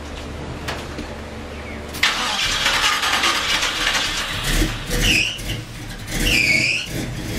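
Chevy 350 small-block V8 cranked and started, catching suddenly about two seconds in and then running unevenly, its level rising and falling as it is revved. Two short high squeals sound near the end.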